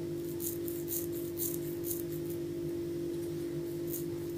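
A steady low electrical hum runs throughout, with a few soft brushing rustles of hands rolling dough on a floured wooden tabletop.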